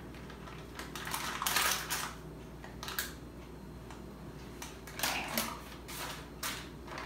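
A spatula smoothing thick, setting soap batter in a parchment-lined glass baking dish: a few short bursts of scraping and paper crinkling, the loudest about one and a half seconds in.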